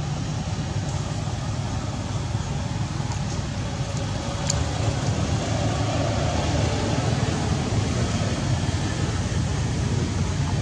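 Steady low rumbling background noise with no distinct events, and one brief sharp click about four and a half seconds in.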